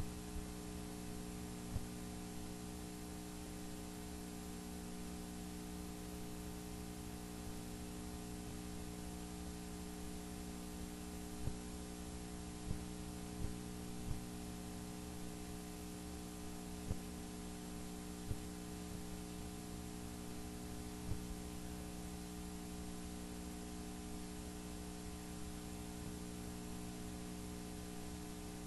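Steady low electrical hum, with a handful of faint short knocks scattered through.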